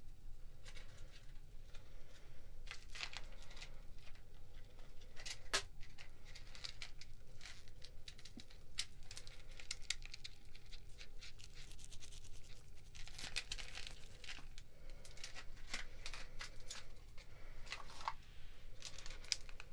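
Packaging crinkling and rustling, with many sharp clicks and taps scattered through, busiest about two-thirds of the way in.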